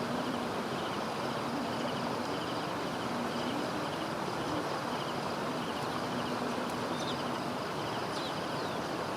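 Steady rush of flowing floodwater, with a low engine hum wavering in pitch and insects chirping in short repeated trills.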